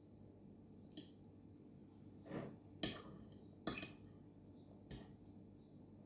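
A few light clinks and knocks of dishes and cutlery being handled, with one soft swish about two seconds in.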